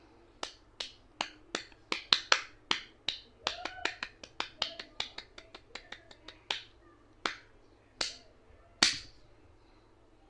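A run of sharp, separate snapping clicks, a few a second and irregular. They crowd together in the middle, then slow to about one every three-quarters of a second, and the last snap is one of the loudest.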